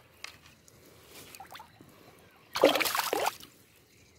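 Water splashing once, for under a second, about two and a half seconds in, as a pike swims out of a landing net in shallow water; soft water movement before it.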